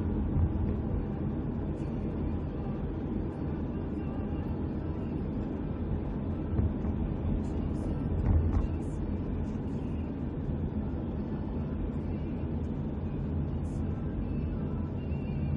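Steady low rumble of a car on the move, heard from inside the cabin, with a brief thump a little past halfway.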